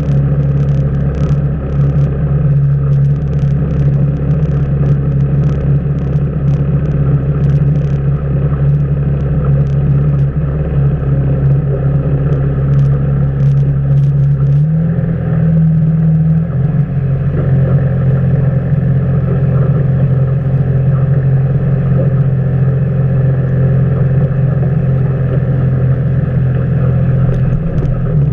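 Outboard motor running steadily at low speed, its pitch shifting briefly about halfway through.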